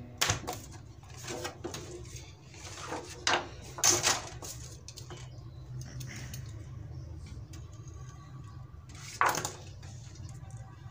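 Handling noise of a sheet of paper and a thin metal LCD backplate being moved about on a work table: a few rustles and light knocks, the loudest about four seconds in and again about nine seconds in, over a steady low hum.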